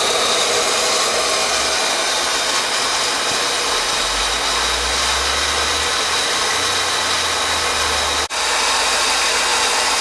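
Goulds electric water pump running steadily, a continuous motor whine and rush of water. Its pressure switch contacts hold closed with no sparking or bouncing. The sound dips for a moment about eight seconds in.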